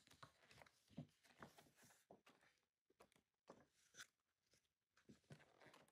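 Near silence with faint, scattered rustles and soft taps of a large paper artbook being handled and its pages shifted.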